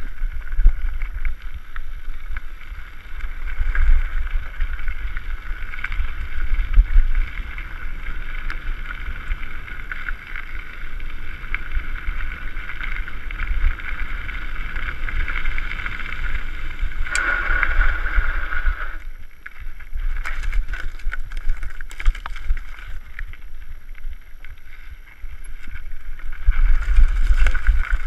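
Mountain bike rolling fast downhill on a gravel road: wind rushing over the microphone, tyres crunching on gravel and the bike rattling, with scattered clicks and knocks. Near the end the low rumble grows louder as the bike runs onto rougher ground.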